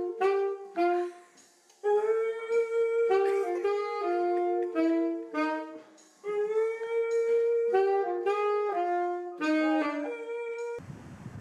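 A saxophone playing a melody in phrases while a dog howls along in long held notes. The sound cuts off abruptly near the end.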